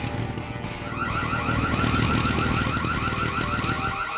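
Electronic burglar-alarm siren: a rapid, repeating high warble, several pulses a second, that starts about a second in. A low rumble is underneath at the start.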